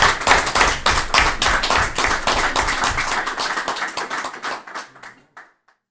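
An audience applauding, many hands clapping at once; the applause thins out and stops about five and a half seconds in.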